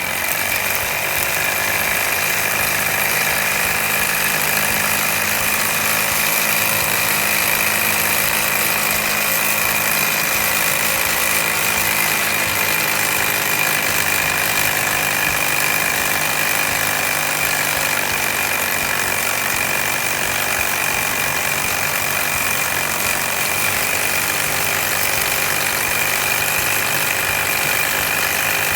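1960s-era methylated-spirit-fired model steam engine running fast and steady: a continuous mechanical rattle with a steady high whine over it. It picks up speed in the first second.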